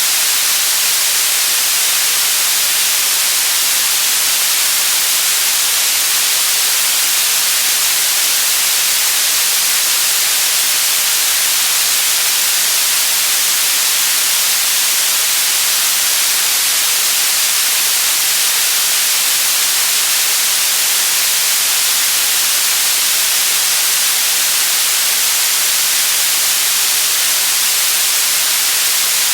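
Steady, unbroken white noise: a loud, even hiss like static, heaviest in the treble and thin in the bass, with no change in level or character.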